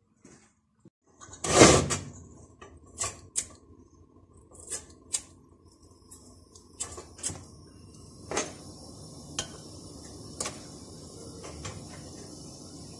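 A loud thump about a second and a half in, then a scatter of sharp clicks and knocks as metal parts are handled on a steel bench. From about six seconds a small gas-cylinder stove's burner is lit and gives a steady hiss.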